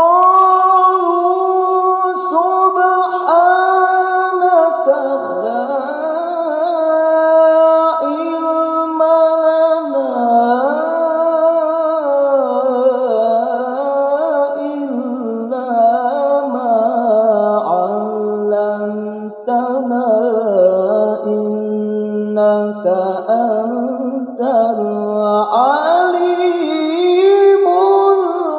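A male qari reciting the Qur'an in melodic tilawah style, drawing out long held notes with winding ornamented turns, one unaccompanied voice. It begins abruptly right after a pause.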